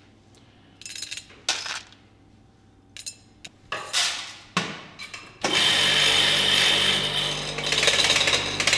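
A few short clicks and rattles, then about five and a half seconds in an electric coffee grinder starts suddenly and runs steadily, grinding a 20 g dose of roasted coffee beans.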